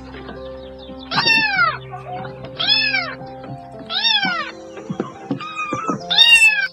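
Kitten meowing, about five meows each rising then falling in pitch, over soft background music with held notes.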